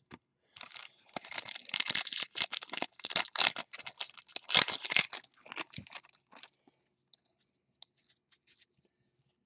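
Foil trading-card pack being torn open and crinkled by hand: a dense run of rips and crinkles lasting about six seconds, then it stops.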